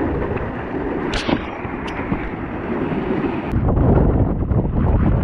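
Mountain bike rolling over a wet, rough track: tyre hiss and splash with the bike rattling, and two brief high squeaks between one and two seconds in. About three and a half seconds in it changes abruptly to heavy wind buffeting the camera microphone, with scattered clicks of gravel and rattle under it.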